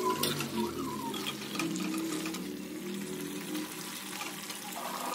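A metal spoon stirs chunks of meat curry in a steel kadai, with light scrapes and clicks against the pan over a steady hiss from the curry cooking.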